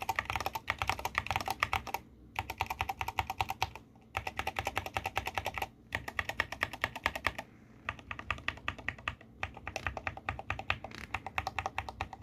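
Mechanical keyboard keys with Huano American Rose Garden 35 g switches pressed in rapid runs of clicks, each run about a second and a half long with short pauses between.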